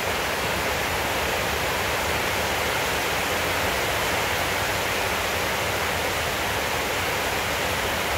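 A steady, even rushing hiss that holds at the same level throughout, with no distinct chewing clicks or other events standing out.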